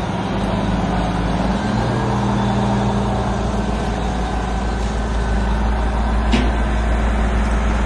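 Heavy diesel engine running steadily under load, its pitch stepping up and down slightly a few times, with one short click about six seconds in.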